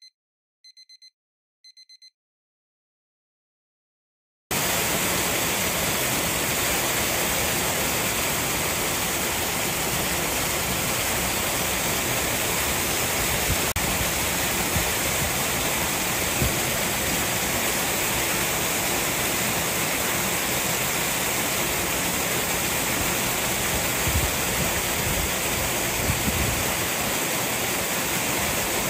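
Three short electronic beeps a second apart, then after a pause a steady rush of moving water in a polar bear's pool, with the churn of the bear swimming through it.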